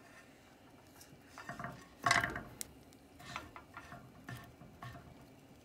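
Wooden chopsticks scraping and knocking against a nonstick frying pan as a prickly pear cactus pad is pushed and turned in it: a string of short scrapes and taps, loudest a little after two seconds in.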